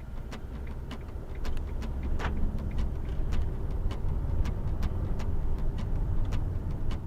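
Fiat Ducato camper van on the move: a steady low road and engine rumble that grows louder about a second and a half in, with frequent short clicks and rattles.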